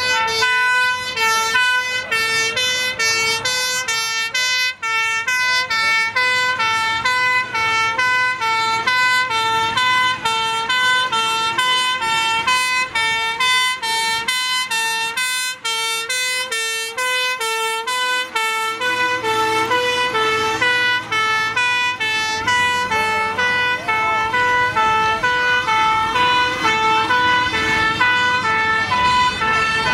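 Fire engine two-tone sirens sounding hi-lo, the high and low notes alternating in a fast, steady rhythm. About two thirds of the way through a second siren at a slightly different pitch overlaps it, with engines running underneath.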